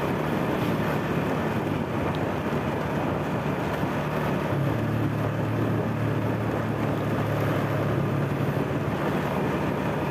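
Engine of a moving road vehicle running steadily, with wind and road noise. The engine hum grows a little stronger about four and a half seconds in.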